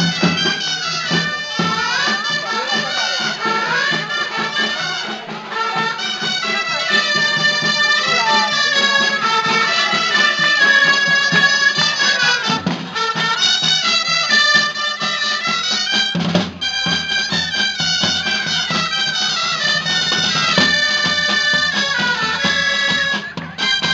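A street band of traditional reed shawms playing a folk dance tune together in unison and harmony, over the steady beat of two side drums.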